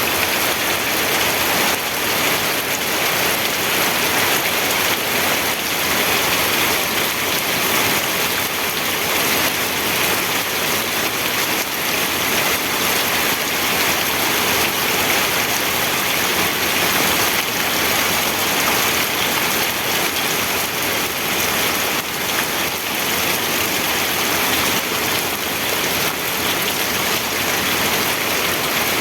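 Steady rainfall, an even hiss of rain on a surface with no thunder.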